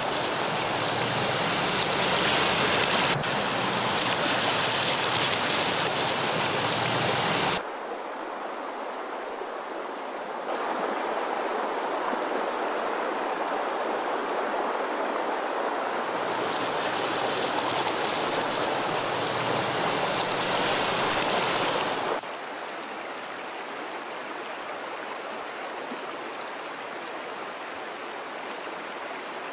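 Rushing, splashing muddy river water surging around a Range Rover L405 as it wades through a fast-flowing river. The steady rush changes abruptly in level and tone several times.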